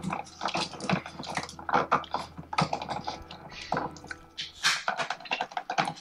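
Irregular clicking and crackling of Romex electrical cable being handled at an outlet box as its three wires are pulled apart and their insulation is cut.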